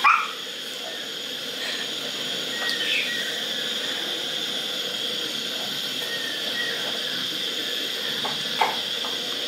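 Hot oil in a kadai sizzling steadily as noodle-coated Maggi balls are dropped in one at a time for deep-frying, with a few faint soft plops as the balls go in.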